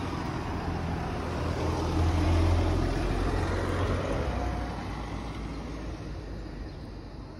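A motor vehicle passing on the road, its low rumble swelling to its loudest about two seconds in and then fading away.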